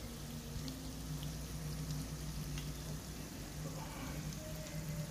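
Breaded potato cheese patties shallow-frying in oil in a pan over a low flame: a steady sizzle with scattered small pops.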